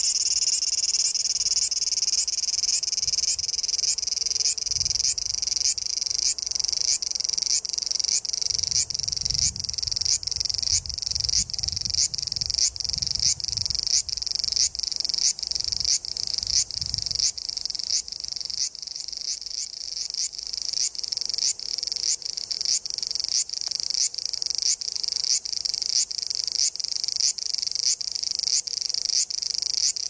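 Cicadas singing: a loud, high-pitched buzzing call that pulses evenly, about two pulses a second.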